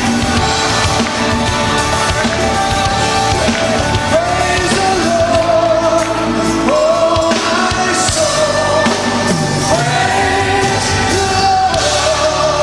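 Live worship band playing, led by grand piano and electric guitar, with a voice singing long held notes that swell in over the band from about four seconds in.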